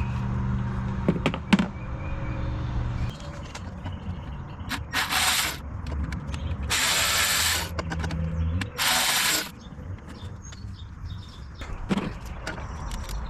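Socket ratchet clicking in three quick bursts, about five, seven and nine seconds in, with a few sharp clinks of metal tools between: 10 mm bolts being backed out.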